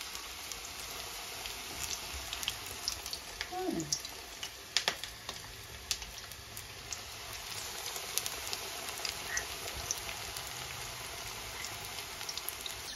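Vegetable pakoras, gram-flour batter fritters, deep-frying in hot oil in a wok: a steady sizzle with scattered crackles and pops.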